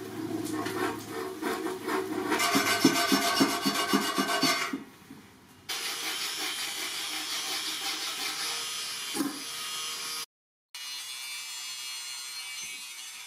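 Hand file rasping in repeated strokes on the plasma-cut edge of a thick steel sword blade, cleaning up the rough cut. After a short pause about five seconds in, a steadier scraping hiss follows.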